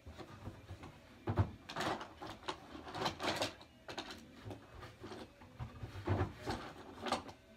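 Irregular knocks, clicks and clatter of small objects being moved about and handled, as someone rummages through belongings.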